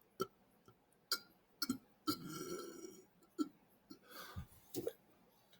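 A man swallowing air to build up a burp: quiet gulps and mouth clicks, with a short low burp about two seconds in and another softer one near the end.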